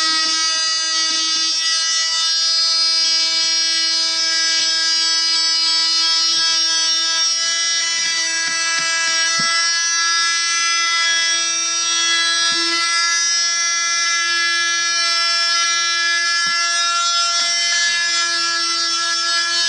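DeWalt DWE315 oscillating multi-tool with a hook-and-loop sanding pad running steadily, giving a constant buzzing tone as it sands stain off a wooden chair leg.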